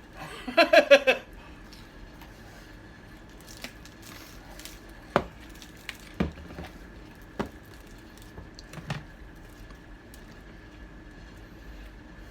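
A short burst of voice about half a second in, then light clicks and taps from eating and handling food and packaging at the table, about five of them spread out, over a faint steady hum.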